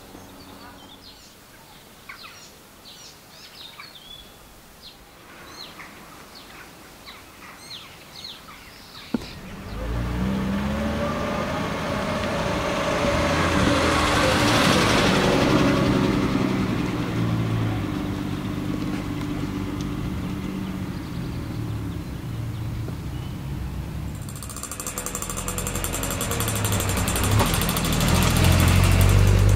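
Birds chirping for the first nine seconds. Then a Triumph TR6's 2.5-litre straight-six drives up and passes close by, loudest around the middle. A second TR6 approaches and is loudest near the end.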